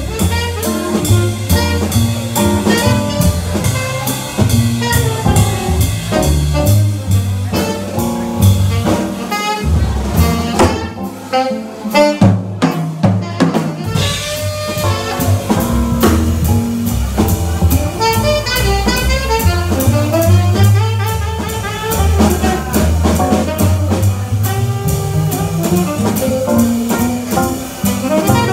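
Live small-group jazz: a tenor saxophone solo over walking double bass and drum kit. About ten seconds in, the bass and drums stop for a few seconds while the saxophone plays on alone, then the rhythm section comes back in.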